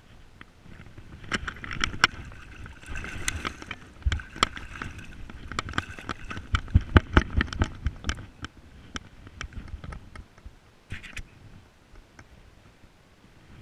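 Water splashing and sloshing close up as a spring salmon is held in the river and released, with a dense run of sharp knocks and slaps for several seconds before it settles to quieter water noise.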